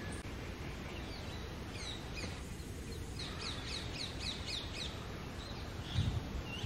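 Small birds chirping: a quick run of short, high, falling notes, thickest about three to five seconds in, over a steady low background noise. A brief low thump comes near the end.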